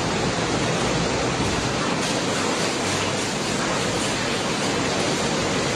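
Steady rush of water from flooding, an even noisy wash with no breaks.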